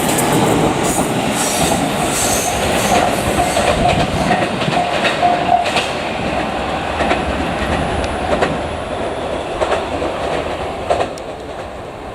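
JR Kyushu 787 series electric train running past, its wheels clacking over rail joints with a sharp click every second or so. The running noise grows fainter toward the end as the train moves away.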